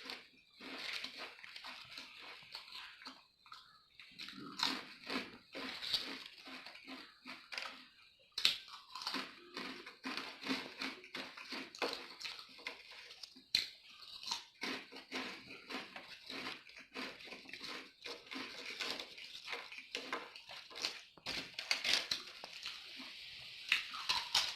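Close-miked crunching and chewing of potato chips: a dense run of crisp, irregular crackles, broken by a few brief pauses between mouthfuls.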